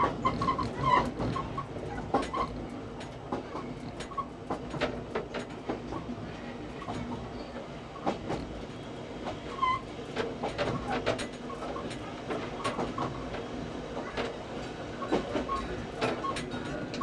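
Electric commuter train running on the Meitetsu Komaki Line, heard from the driver's cab: a steady rumble of the running gear with the wheels clicking irregularly over rail joints, and a few short high squeaks.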